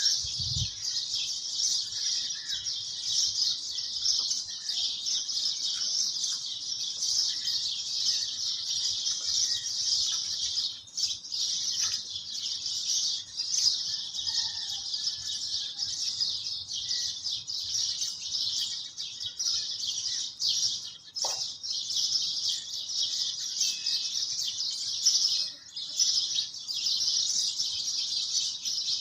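A dense, continuous chorus of high-pitched chirping birds.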